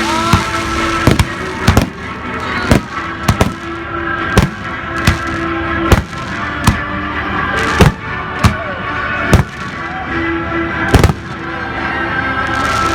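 Fireworks shells bursting overhead: more than a dozen sharp bangs at irregular gaps of about a second, with a short lull near the end.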